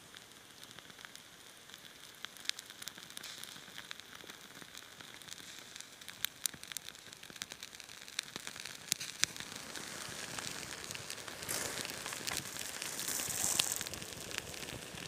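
Small kindling fire of birch bark and resinous wood slivers catching from a match: crackling and sizzling with sharp pops, growing louder as the flames take hold. A louder rush of flame comes about twelve to fourteen seconds in.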